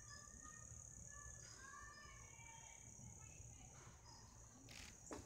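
Faint outdoor evening ambience: a steady high-pitched insect chorus, with a few short chirps scattered over it and a brief soft noise near the end.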